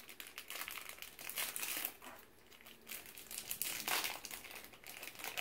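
A small crinkly wrapper being picked open and unwrapped by hand, an uneven crinkling with louder spells about a second and a half in and again about four seconds in.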